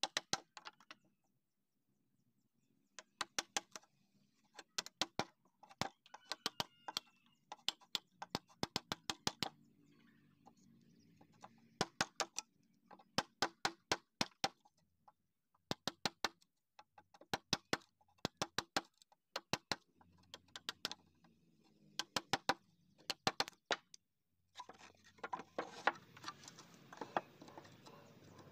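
Wide steel chisel blade chopping into a wooden block, knocking out the waste between saw kerfs to form a long tenon, in quick bursts of sharp wooden knocks about once a second. Near the end a steady rustling noise rises under the knocks.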